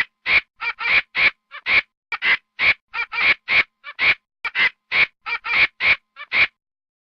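A monkey giving a rapid run of short calls, about three a second, that stop suddenly about six and a half seconds in.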